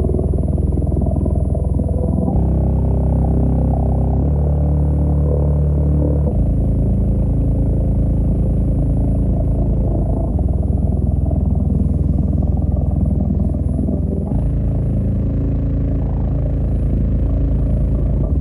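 Deep bass notes played loud through a 12-inch subwoofer in its enclosure, each note held for a few seconds before shifting to another pitch.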